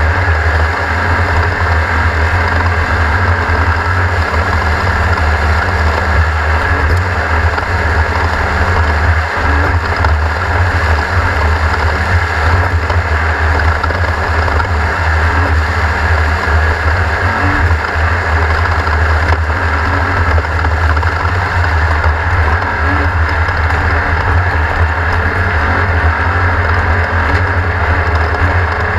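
Class 1600 off-road race car's air-cooled Volkswagen four-cylinder engine running at race pace, a loud, steady drone with no let-up.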